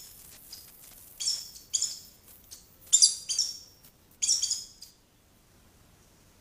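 Wild bird chirping: a series of short, high calls, about six in the first five seconds, then they stop.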